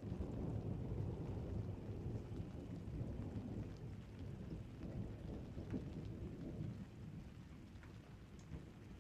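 Thunder rumbling low and rolling on, with rain falling and a few light drops ticking. The rumble slowly dies away.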